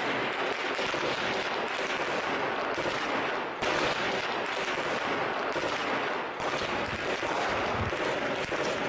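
Dense, continuous crackle and rumble like sustained heavy gunfire, with a brief dip about three and a half seconds in.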